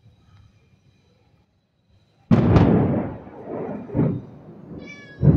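Thunderclap: a sudden sharp crack about two seconds in, then a rumble that dies away and swells again, and a second loud crack near the end. A cat meows briefly just before the second crack.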